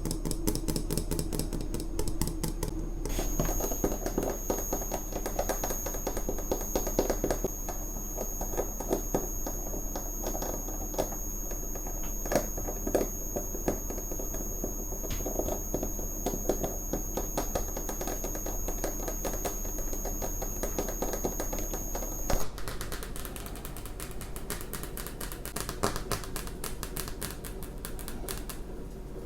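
Fingernails tapping and scratching on fridge magnets: a dense, rapid run of small clicks, changing abruptly a little over twenty seconds in.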